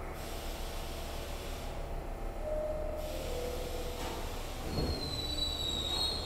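R62 subway train moving slowly along the platform, a low steady rumble and hum from the cars, with a thin high wheel squeal setting in about four seconds in.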